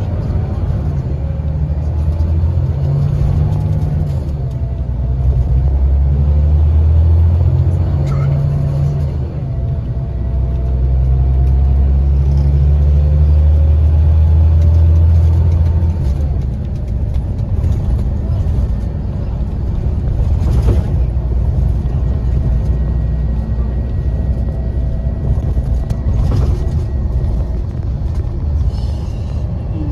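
Scania Touring coach's diesel engine heard from inside the cabin, pulling under load twice with a rising engine note and a brief dip between, then easing off about sixteen seconds in. Road and tyre noise with a few knocks runs underneath.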